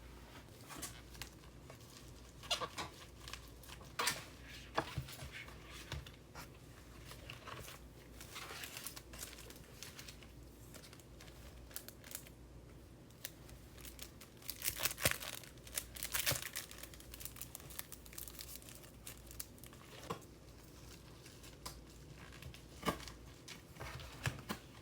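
Plastic wrap and tape being crinkled and torn by hand, in irregular bursts of crackling with a few short tears, busiest about halfway through.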